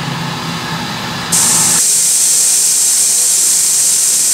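Low, steady workshop hum, cut off about a second and a half in by a louder, steady hiss.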